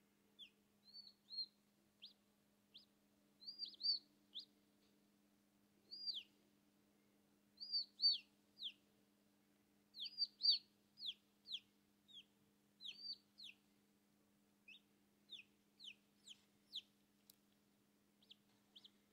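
A chick calling from inside its unhatched egg: short, high peeps that slide down in pitch, coming in irregular runs of one to three with short gaps between.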